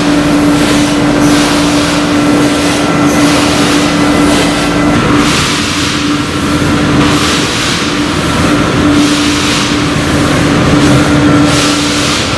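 Printing-plant machinery running: a loud, steady mechanical drone with a constant hum and a noisy rush that swells and eases every second or two.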